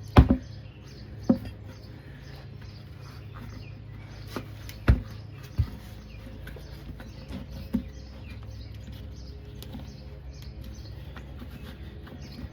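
Sharp knocks and clanks of screwdrivers against the wheel rim as a lawn mower tire's bead is pried and worked over the rim by hand; about five at irregular intervals, the first the loudest.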